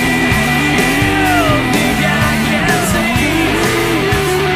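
Hard rock song: distorted electric guitars and drums, with a sung male lead vocal line bending up and down.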